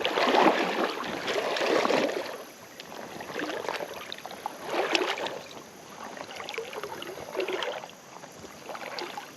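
Legs wading through a shallow creek, the water sloshing and splashing in uneven surges with each stride, loudest in the first two seconds.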